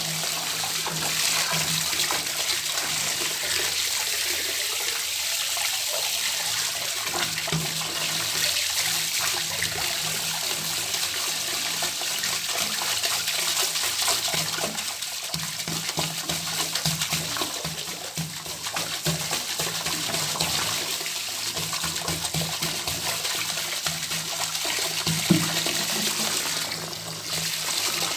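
Water running steadily from an open tap into a bathtub, an even rushing splash, with one short louder moment near the end.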